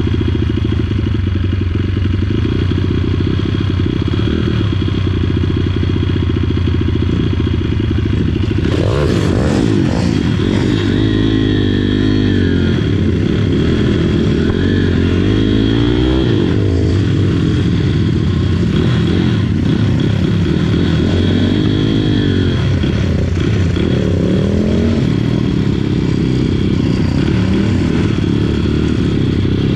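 Pit bike engine heard close up from onboard. It idles steadily for about eight seconds, then revs up as the bike pulls away and rides slowly, its pitch rising and falling several times as the throttle is opened and closed.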